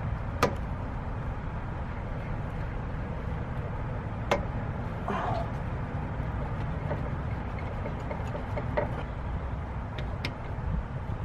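Steady low rumble of outdoor background noise, with a few sharp clicks as a rubber lower radiator hose is worked onto the radiator outlet and its clamp is set with pliers.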